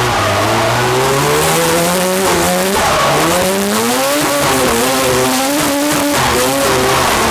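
Mazda RX-7 rotary engine revving hard under drift, heard from inside the cabin: its pitch climbs for about two and a half seconds, falls back sharply, climbs again and then rises and falls with the throttle, over tyres screeching on the tarmac.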